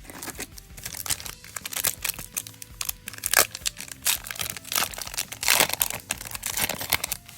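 Foil booster pack of Yu-Gi-Oh cards being torn open and its wrapper crinkled: a dense, irregular run of crackling rustles.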